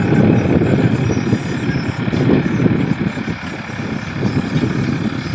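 Tractor engine working hard under load as the tractor pulls a plough through the soil, a steady, rough running sound.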